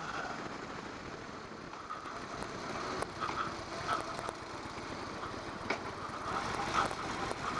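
2016 Harley-Davidson Low Rider S's V-twin engine, fitted with slip-on mufflers, running steadily as the bike rolls along at low speed.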